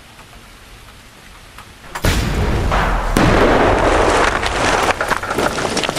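A large explosion goes off about two seconds in: a sudden blast, then a long, loud roar with crackling as debris flies.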